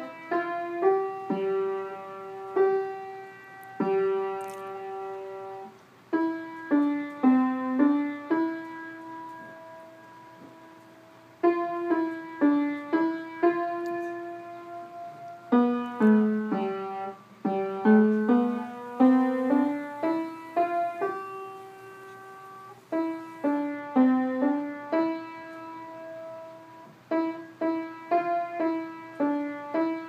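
Upright piano played by a young child: short phrases of quick notes, each ending on a held note that dies away before the next phrase begins.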